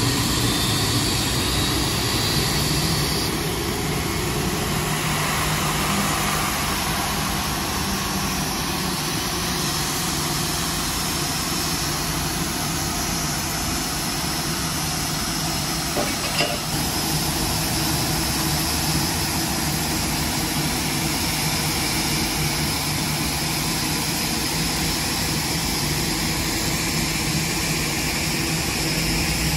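Boeing 787-10's jet engines idling, a steady rumble and hiss, with a brief knock about halfway through.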